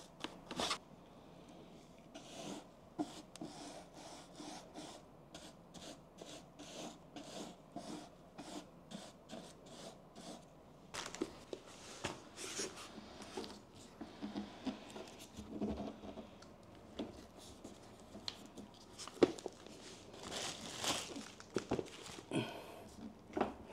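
Soft, rapid scratchy strokes, evenly spaced, of a paint applicator worked over the ribbed base of a coffee table; about halfway through they give way to irregular rubbing and a few light knocks of gloved hands on the tabletop.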